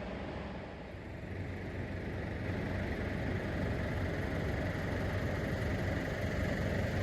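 A vehicle engine idling steadily with a low hum, growing a little louder after about two seconds.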